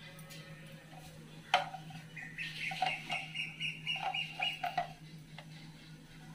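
Asian koel (kuyil) calling, a run of short repeated notes from about two to five seconds in, over a steady low hum. A sharp click sounds about one and a half seconds in.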